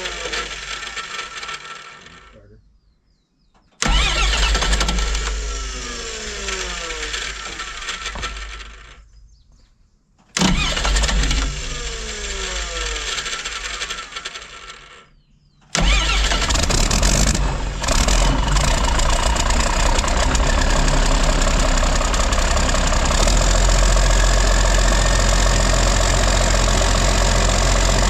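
Freshly rebuilt 12-valve Cummins diesel being cranked by its starter in three tries with pauses between them. On the third try it catches about 16 seconds in and keeps running loudly and steadily, with no muffler fitted.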